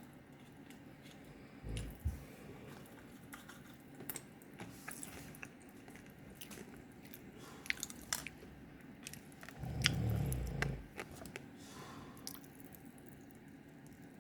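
A man snoring in his sleep, two low snores about 2 s and 10 s in, the second louder and about a second long, with scattered clicking and popping mouth noises between them.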